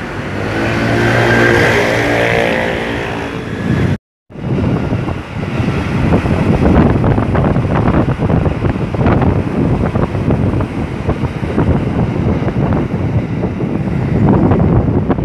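Electric commuter train (KRL Commuter Line multiple unit) passing on the railway, with a steady pitched drone for the first few seconds. The sound cuts out briefly about four seconds in, then gives way to a low rumble and a dense, irregular clatter of wheels over the rails. Some wind on the microphone.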